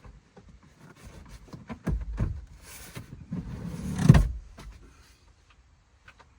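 A car seat being moved back into position: clicks, rattles and sliding noises, with a heavy thump about four seconds in.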